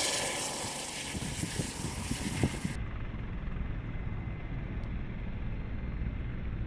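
Helicopter rotor wash blasting snow, a loud rushing noise with a few knocks. It cuts off abruptly about three seconds in to a formation of military transport helicopters passing overhead, heard as a steady low rotor rumble.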